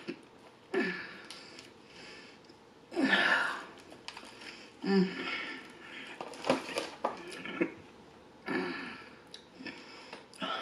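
Close-miked eating sounds: a person chewing bread with heavy, wheezy breathing through the nose and a few short throaty 'mm' noises, while pulling a crusty bread roll apart by hand.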